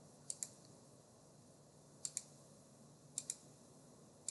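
Computer mouse button clicked in quick double-clicks: three pairs of sharp clicks about a second or more apart, with another pair starting at the end.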